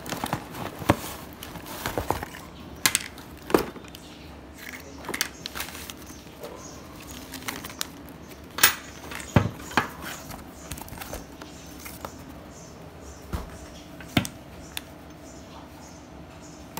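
Handling noise from unpacking a Bosch GSB 501 corded impact drill: scattered sharp knocks and clicks of the cardboard box, plastic wrapping and the drill with its power cord being moved about by hand.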